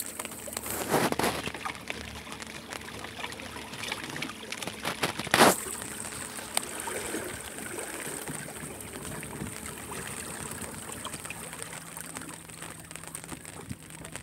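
Water trickling and sloshing around the hull of a small paddle boat moving under an electric trolling motor, with two louder bursts about a second in and about five seconds in.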